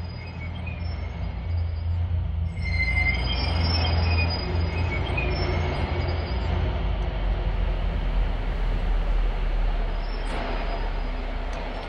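Korail electric commuter train coming into a station: its wheels squeal in thin high tones over a low rumble. The squeal fades about halfway through, leaving the steady rumble of the moving train.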